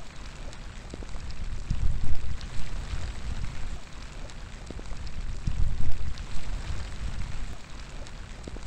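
Steady outdoor rain falling, with scattered individual drop ticks over an even hiss, and wind gusting in a low rumble that swells and fades every few seconds.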